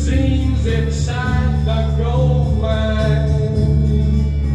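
A song with singing over a steady instrumental accompaniment, played back through speakers driven by a Sony TA-N77ES stereo power amplifier.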